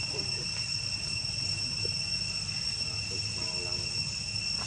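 Insect chorus in the forest: a steady, unbroken high-pitched drone over a low rumble, with a brief faint call about three and a half seconds in.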